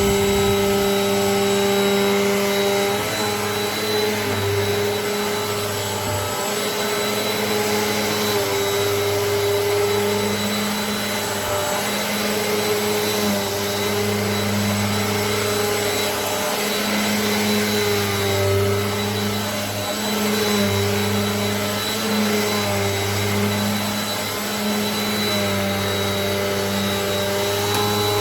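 Eureka AirSpeed NEU10AE5 bagless upright vacuum cleaner running, a steady motor hum and high whine whose loudness wavers slightly.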